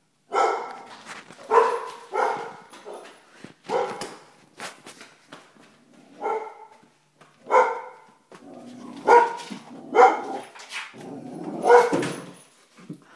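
A Vizsla barking: about ten short, sharp barks at uneven intervals, coming closer together near the end.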